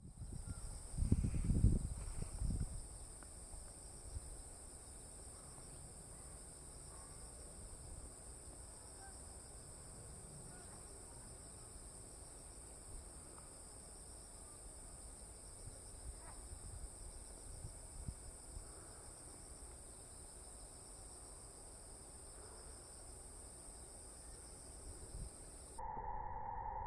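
Faint, steady high-pitched chirring of insects in an autumn field, with low wind rumble on the microphone around a couple of seconds in.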